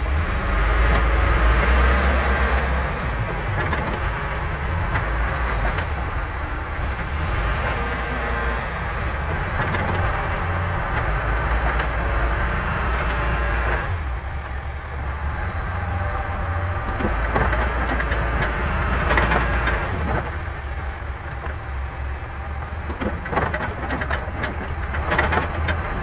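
John Deere 410B backhoe loader's diesel engine running as the machine drives and manoeuvres, with metallic rattles and clanks from the machine that come more often in the second half.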